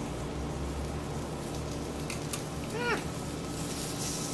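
Sliced vegetables sizzling steadily on a hot grill pan, with a few light clicks of chopsticks; about three seconds in, a cat meows once, briefly.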